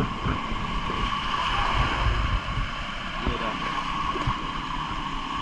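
Wind buffeting the microphone over a steady wash of water on a small boat at sea, with irregular low rumbles and a faint steady hum.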